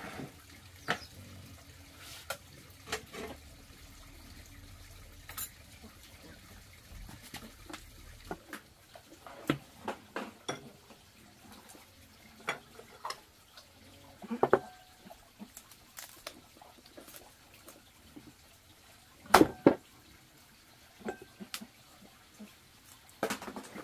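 Cleaver cutting up a whole boiled chicken on a round wooden chopping block: scattered knocks and clicks, with two hard strikes close together about three-quarters of the way through.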